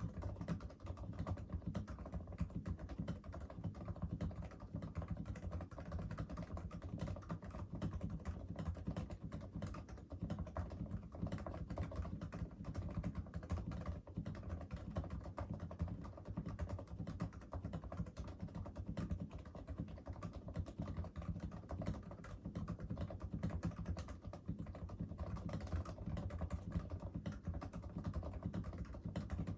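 Continuous fast typing on a Topre electro-capacitive keyboard, a Realforce RGB TKL with PBT keycaps, silencing rings and lubed sliders, giving a dense run of soft, low-pitched key thocks.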